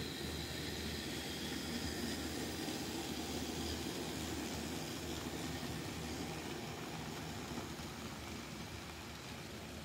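N scale model diesel locomotives and cars running along the track: a steady motor hum and rolling of the small wheels over the rails, growing a little louder as the train comes close and easing off near the end.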